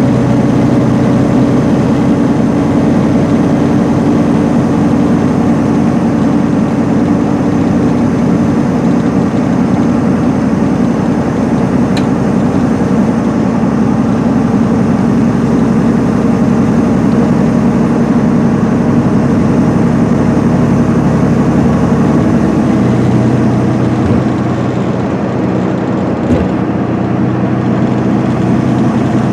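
The Cummins ISM straight-six diesel of a 2010 MCI D4500CL coach running steadily at highway speed, heard from inside the passenger cabin as a constant engine drone over road and tyre noise. The engine note shifts slightly about three-quarters of the way through.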